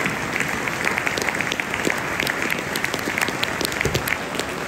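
Football stadium crowd applauding steadily together: a dense patter of many hands clapping, with single sharp claps standing out. It is a moment of applause held as a tribute.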